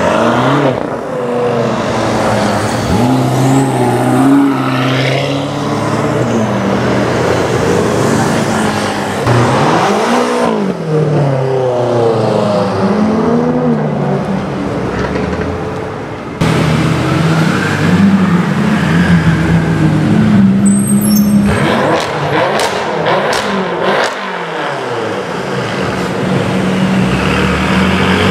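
Twin-turbo V8 engines of BMW M6 coupes and Gran Coupes revving and accelerating away, loud, the engine pitch rising and falling again and again. Several separate passes follow one another, each cut off abruptly.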